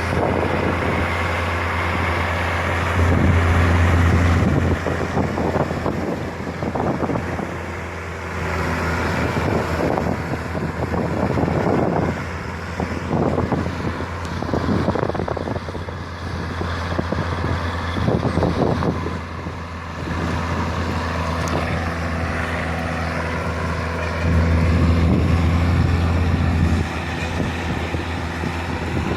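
An engine running steadily with a low hum, and wind on the microphone. It grows louder for a couple of seconds about three seconds in and again near the end.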